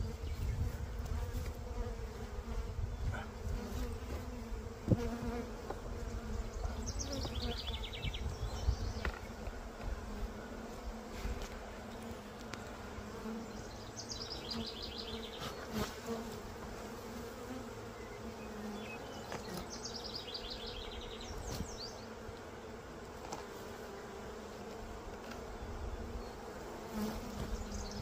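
Honeybees buzzing in numbers around an open hive: a steady hum. A few light knocks sound now and then.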